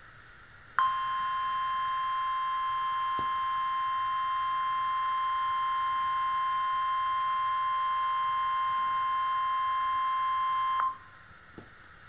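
NOAA Weather Radio's 1050 Hz warning alarm tone: a single steady beep-like tone held for about ten seconds, starting about a second in and cutting off near the end. It is the tone that signals a warning-level alert, here a tornado warning.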